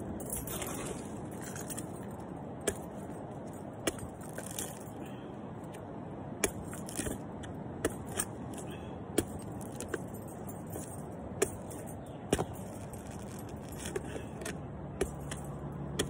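Long-handled pruning loppers chopping and prying at a young coconut's husk: a string of about ten sharp, irregularly spaced clicks and snaps as the blades bite and close, over steady background noise.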